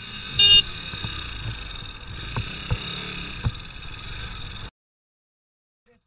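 A vehicle horn sounds twice in quick succession, a brief beep and then a louder blast, over the steady road and wind noise of a motorcycle riding between cars, with a few low thumps. About three-quarters of the way through, the sound cuts off abruptly to dead silence.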